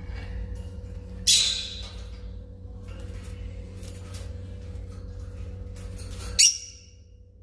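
Lovebirds giving two loud, shrill calls, one about a second in and one near the end, over a steady low hum.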